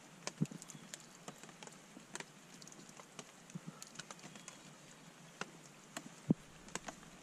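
Faint scraping and irregular light clicks of an orange plastic spoon working thick rehydrated spaghetti sauce out of a metal camp mug into a pot of pasta. Two dull knocks of the mug against the pot come about half a second in and, louder, about six seconds in.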